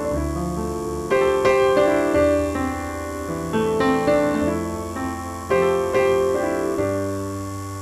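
Background piano music: struck notes and chords that start sharply and ring down, over a sustained bass line.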